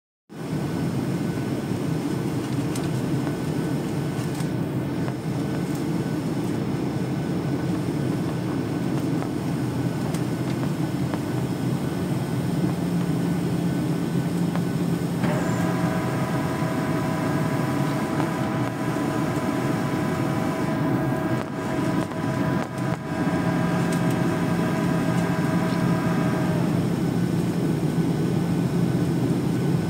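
Boeing 737 cabin noise on the landing approach: the steady noise of the jet engines and the airflow past the fuselage, heard from a seat by the wing. About fifteen seconds in, a steady whine made of several even tones starts abruptly, runs for about eleven seconds, then cuts off.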